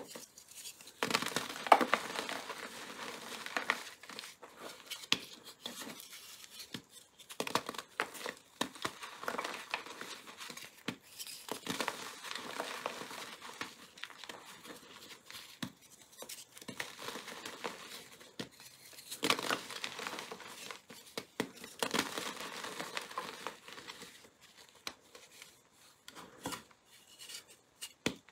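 Glitter- and colored-powder-coated gym chalk crushed and crumbled in bare hands: irregular dry crunching and crackling as chunks break, with gritty rubbing as the powder is ground between the palms. The crunching comes in bursts with quieter pauses between them.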